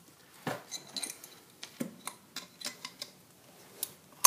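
Light metal clicks and clinks at irregular spacing, with one sharper clank near the end: a wrench working the bolt on the steel belly band strap around an ECM blower motor to loosen it.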